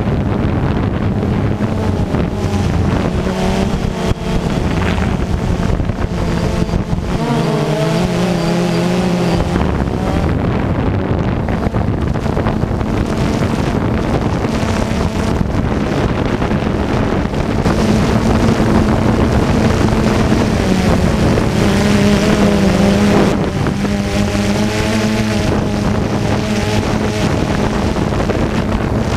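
DJI Phantom 2 quadcopter's four brushless motors and propellers whirring steadily, heard from the camera it carries, their pitch shifting several times as the motor speeds change. Wind rushes over the microphone.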